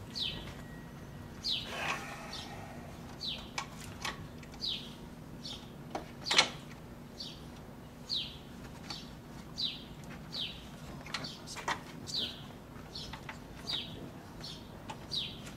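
A bird calling over and over, a short falling chirp about once a second, with a few sharp clicks and knocks, the loudest about six seconds in.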